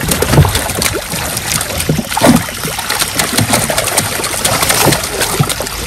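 A netful of large fish thrashing in shallow water, a busy irregular splashing full of sharp slaps.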